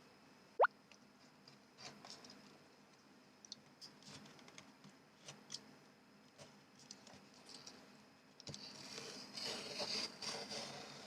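Cosmetics packaging being handled. A short, sharp pop rising in pitch comes about half a second in, followed by scattered light clicks and taps. Rustling of packaging starts near the end.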